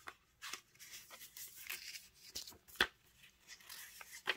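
Thin printed ephemera paper sheets rustling and crinkling as they are leafed through by hand, in short scattered strokes, with a sharper snap of paper a little under three seconds in.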